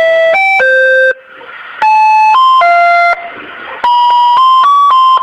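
Electronic chime melody, like a doorbell or ringtone: three short phrases of three or four clear notes each, separated by brief pauses with a soft hiss.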